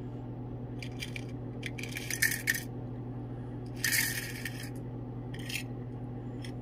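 Small metal relay contacts, silver-tipped on brass, poured into a plastic box in several short clattering bursts, the loudest about two and four seconds in.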